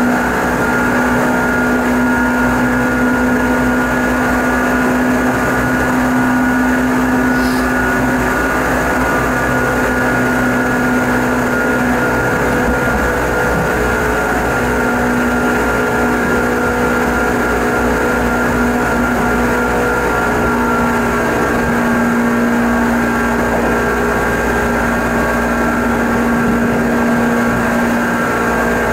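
Running sound of a Seibu 10000 series electric train heard from inside the passenger cabin, travelling at a steady pace. A continuous rumble from the running gear carries a steady low hum with a higher whine above it.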